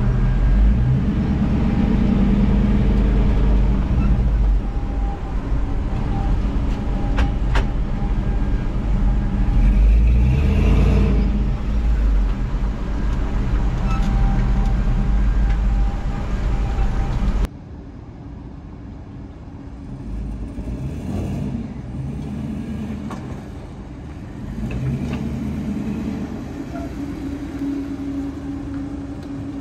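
Swapped-in 2001 Suburban 5.3 L LS V8 in a 1975 GMC K15 pickup running under way, with heavy road rumble. About two-thirds through it cuts off suddenly to a much quieter, steadier vehicle sound.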